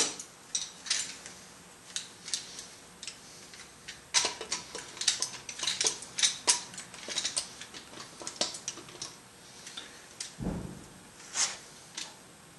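Irregular metallic clicks and clinks of a valve spring and its retainer being handled and fitted over a valve stem on a Volvo 2.4T cylinder head. A duller thump comes about ten seconds in.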